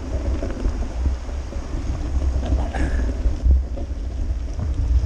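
Wind rumbling across the microphone of a bicycle-mounted action camera as the bike rolls along a paved road: a steady low buffeting with a hiss of the ride above it.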